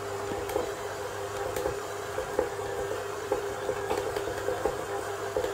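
Electric stand mixer's motor running steadily, its beater turning through pastry crumb as warm water is added to bring it together into dough.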